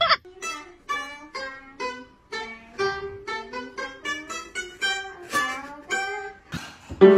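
A violin plucked pizzicato, playing a simple melody of single notes, about three or four a second, each one fading quickly.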